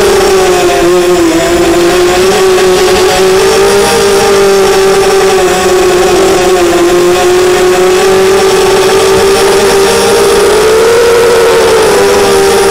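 ZMR250 racing quadcopter's Cobra 2208 2000 kV brushless motors spinning HQ 5045 props, heard from the onboard camera: a loud, continuous buzzing whine whose pitch wavers up and down with the throttle, climbing about ten seconds in and dropping again near the end.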